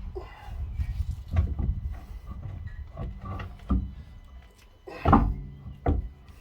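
Heavy road wheel being lifted and knocked against the hub while being fitted back on: several clunks with a short metallic ring, the loudest about five seconds in.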